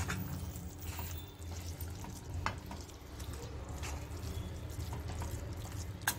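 Metal spoon stirring thick green gram (mung bean) masala in a stainless steel kadai, with a soft sizzle and a few light clicks of the spoon against the pan. A steady low hum sits underneath.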